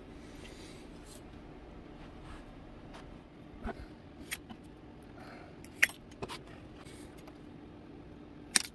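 Scattered light clicks and taps of thin carbon fiber rods and small balsa pieces being handled on a workbench, with one sharper click a little before six seconds in, over a faint steady hum.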